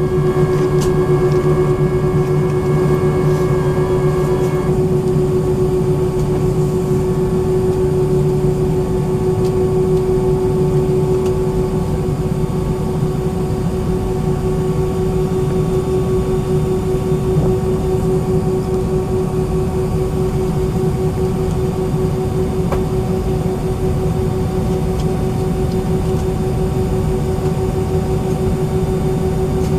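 Steady cabin noise inside an Airbus A319-131 before takeoff: the IAE V2500 engines at idle and the air conditioning, with a steady hum and a mid-pitched tone. A few higher tones stop about five seconds in.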